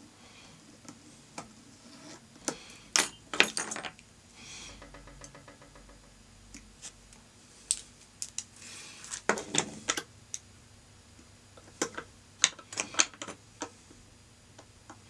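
Scattered clicks and light metallic clinks of fly-tying tools being handled and set down at the vise, with the loudest clusters about three seconds in and again around nine to ten and twelve to thirteen seconds in.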